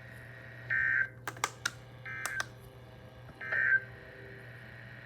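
Emergency Alert System end-of-message signal: three short bursts of two-tone digital data screech, each under half a second, spaced about a second and a third apart. A few sharp clicks fall between the first and second bursts, over a steady low hum.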